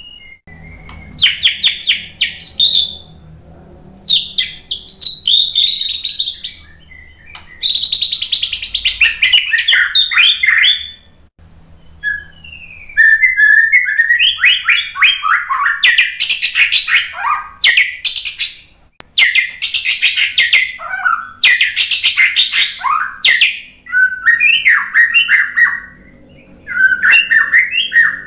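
White-rumped shama (murai batu) singing: loud phrases of rapid-fire notes and whistles, about seven bursts of one to several seconds each, separated by short pauses.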